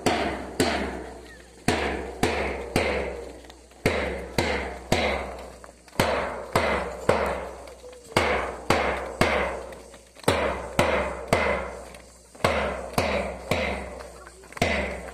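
A drum beaten in steady marching time, about two sharp strikes a second, each with a short ring.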